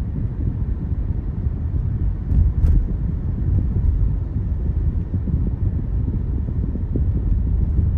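Steady low rumble of a car on the move: road and wind noise with no distinct events.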